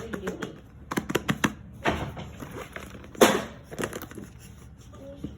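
Handling noise of small objects: a run of sharp clicks and taps about a second in, a short rustle around two seconds, and a brief, louder rustling burst just past three seconds.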